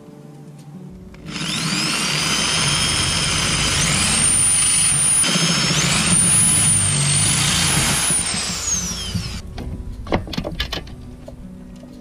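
Bosch corded drill boring a screw hole for a fridge-lid hinge. Its motor whine rises in pitch as it speeds up. It stops about nine seconds in, followed by a few clicks.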